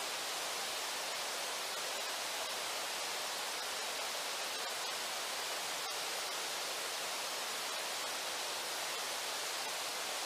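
Steady rush of a shallow river flowing over rocks and riffles, an even hiss with no breaks.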